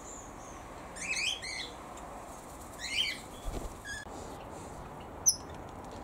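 Small birds chirping and calling: a quick run of chirps about a second in, another chirping call about three seconds in, then a few shorter chirps and a sharp high note just after five seconds.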